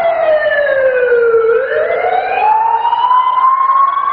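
Recorded emergency-vehicle siren wailing, played over the hall's loudspeakers as part of the routine's soundtrack: one slow fall in pitch over about a second and a half, then a slow rise.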